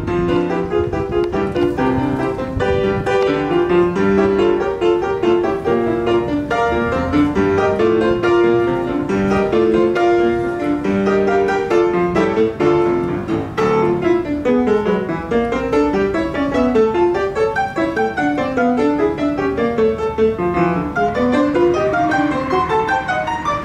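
Grand piano played solo: a steady melody over chords in the first half, then quick rising and falling runs from about halfway through.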